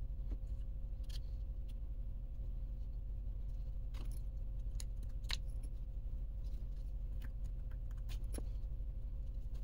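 Scattered light clicks and clinks of small metal transmission gears and parts being handled and set down on a bench as a Traxxas E-Revo 2.0 transmission is taken apart, the sharpest about four to five seconds in and again about eight seconds in, over a steady low hum.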